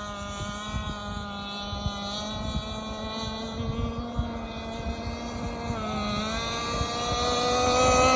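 Two-stroke gas engine of a 47-inch Skater RC catamaran running at speed on the water, a steady high-pitched engine note with wind buffeting the microphone. The pitch dips briefly about six seconds in, then the engine grows louder toward the end as the boat comes closer.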